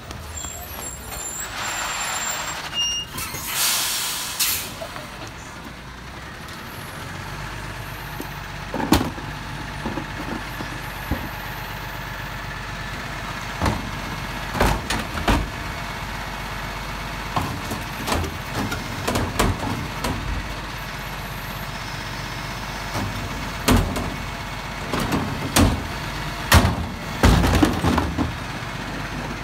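Rubbish truck engine running steadily with a hiss of air about two seconds in, then a string of clanks and thuds as wheelie bins are pushed onto and handled by the truck's bin lifter, heaviest near the end.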